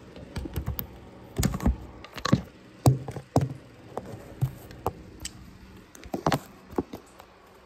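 A phone handled right at its microphone: irregular taps, knocks and rubbing thuds of fingers and hands against the phone as it is set down and propped up on a surface.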